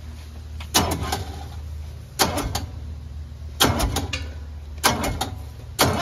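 Five sharp knocks, each a quick cluster of two or three strokes, about one every second and a quarter, over a steady low hum.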